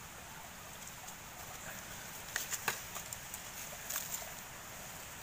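Freshwater shrimp trap being handled: a few sharp clicks and taps, mostly between two and four seconds in, over a steady outdoor hiss.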